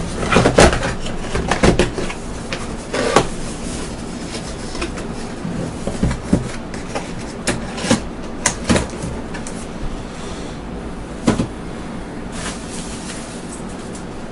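Packaging and small accessories handled by hand: irregular knocks, clicks and rustles as items go back into a cardboard box. The handling is busiest in the first few seconds, with scattered single knocks later, over a steady background hiss.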